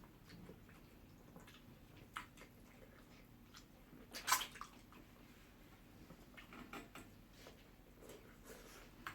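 Wet eating sounds: scattered lip smacks and slurps of someone eating sticky ogbono soup with pounded yam, the loudest a little after four seconds in.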